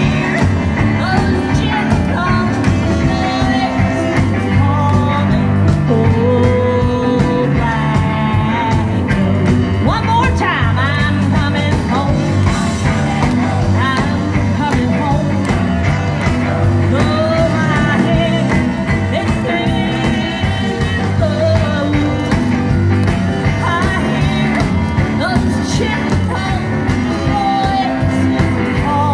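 Live rock-and-roll band playing: saxophone, electric guitar, upright bass, drums and electric piano, with a wavering lead melody over a steady bass line.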